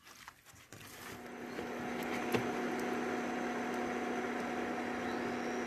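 An induction cooktop running: a steady whirring hum with a low, even tone, coming up about a second in and holding. Before that there is faint squelching of hands mixing spice-coated chicken in a steel bowl.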